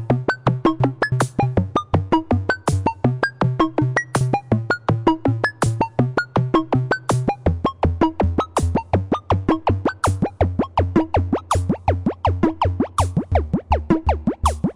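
Comical electronic music: a quick, bouncy synthesizer melody of short staccato notes over a pulsing bass line and drum machine beat, with the bass stepping down lower about halfway through.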